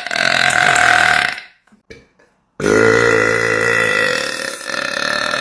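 A person burping: the end of one long, deep burp about a second and a half in, then after a short pause a second long burp that carries on past the end.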